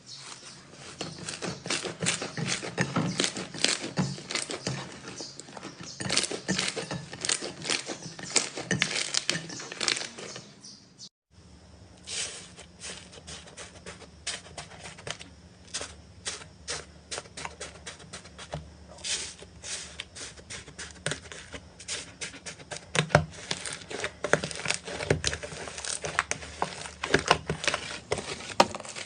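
Slime being squeezed and played with, giving a dense run of small crackles and pops. The sound cuts out briefly about eleven seconds in, then carries on.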